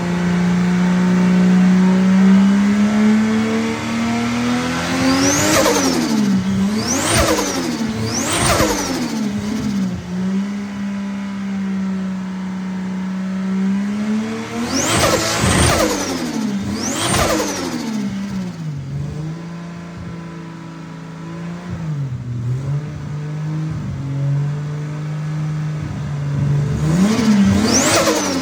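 Turbocharged Toyota 2JZ inline-six running at a steady engine speed, blipped sharply in three quick bursts twice and once more near the end, with a high chirping turbo whistle and flutter as each rev falls away.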